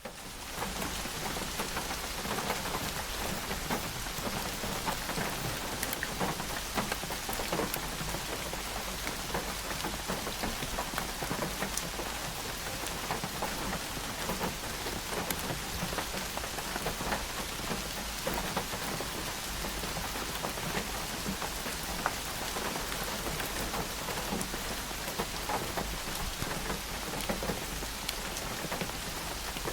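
Steady rainfall, with many individual drops striking surfaces as sharp ticks over an even hiss.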